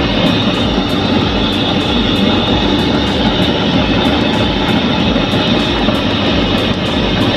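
Homemade half-inch LPG jet burner with a 2-inch electric blower running steadily: a continuous loud rush of flame and fan air.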